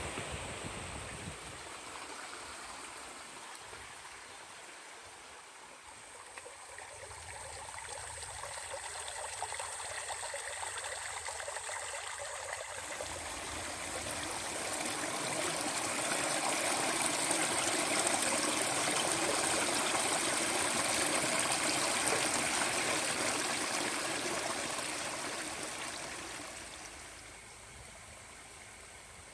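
Clear stream water rushing and splashing, growing louder about halfway through and easing off near the end.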